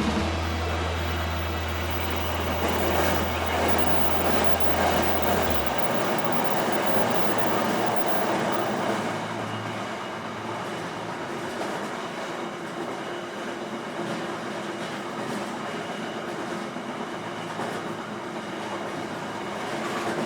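A train passing, a steady rumble of wheels on rails that eases about nine seconds in. A low steady hum underneath stops suddenly about six seconds in.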